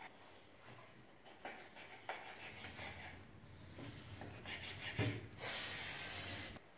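Kitchen knife cutting red bell pepper on a wooden cutting board, with scattered taps of the blade on the wood and rough scraping. About five seconds in there is a sharp knock, then a louder steady rubbing hiss that lasts about a second.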